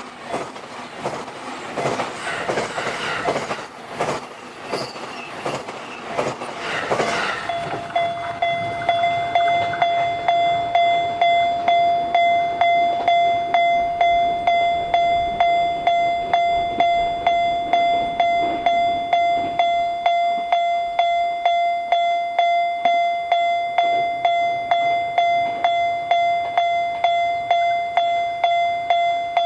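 A JR Sobu Line electric train passes over the level crossing, its wheels rumbling with a high squeal on top. About seven seconds in the train noise falls away, leaving the Japanese crossing alarm ringing its steady 'kan kan', about two strokes a second.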